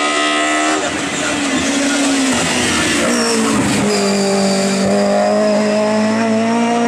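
Hill-climb race car engine running hard under load, its note dropping sharply about a second in and again around three and a half seconds in as it shifts or slows, then holding a steady, slowly rising pitch.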